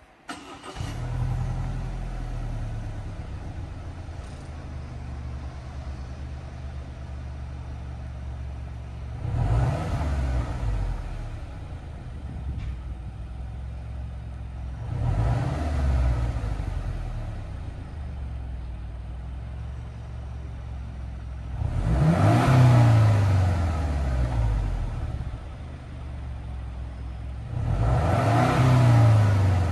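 Subaru Forester Sport's turbocharged flat-four engine heard at the stock factory muffler's twin tailpipes. It starts about a second in with a brief flare, then settles to idle. It is revved four times, rising and falling in pitch: two shorter revs to about 2000 rpm, then two louder ones to about 4000 rpm.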